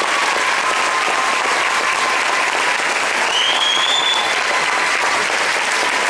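Audience applauding steadily after an a cappella song, with a high, slightly rising whistle from the crowd about three seconds in.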